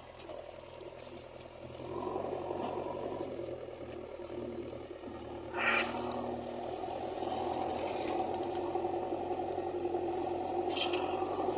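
JCB 3DX backhoe loader's diesel engine running steadily, with a sharp louder noise about six seconds in and a steady tone coming in after it.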